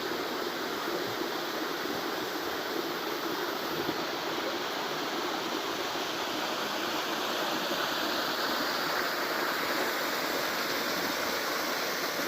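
Waterfall rushing steadily, a little louder in the second half.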